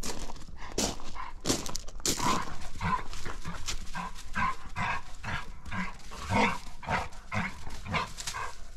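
Two dogs playing together, giving short repeated barks and yips, two or three a second, with rustling and scuffling in dry leaves.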